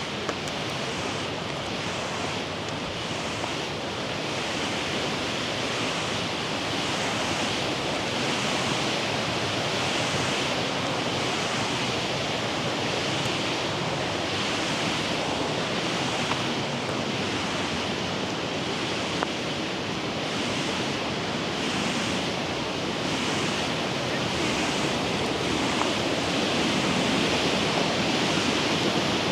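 Steady rush of flowing water, a continuous roar that grows a little louder toward the end.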